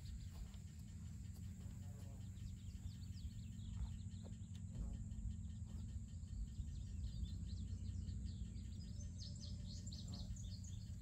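Outdoor ambience: a steady low rumble of wind on the microphone, with birds chirping in quick short calls that grow busier in the second half.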